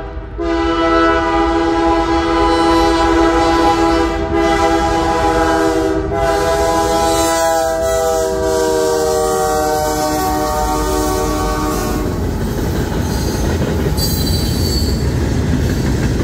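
Canadian Pacific freight locomotive's multi-note air horn blowing one long blast that drops slightly in pitch as the locomotive passes, stopping about twelve seconds in. Then the freight cars rolling past with a steady rumble and wheel clatter.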